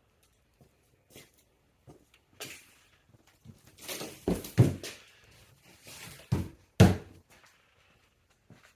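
Unpacking noises: rustling of packaging with a series of knocks and thuds, the loudest about four and a half and seven seconds in.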